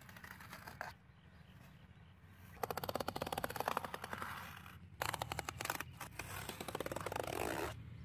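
A small hand tool scraping fast against cardboard and the plastic basket rim: two spells of rasping strokes about two seconds each, the first a little over two seconds in and the second from about five seconds.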